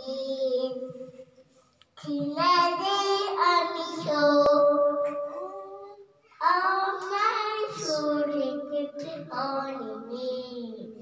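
A small child singing into a handheld microphone, in phrases of held notes with short breaks between them, about a second in and again around six seconds in.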